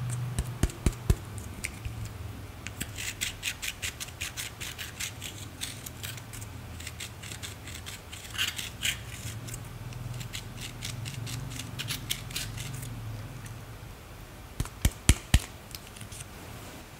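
Pen tip scraping and crumbling pressed eyeshadow out of a plastic palette's pans: runs of short, quick scratchy strokes. A few sharp taps come near the start and again about fifteen seconds in.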